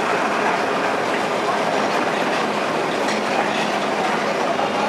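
Calcutta tram car running along street track: a steady noise of steel wheels on the rails and the car moving.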